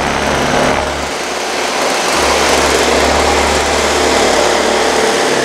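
Toro S-200 snowblower's two-stroke engine running at its fixed speed just after a pull start, with a brief sag about a second in before it settles and runs steadily. It is running on fresh oil-gas mix after the stale fuel was cleaned out of the tank.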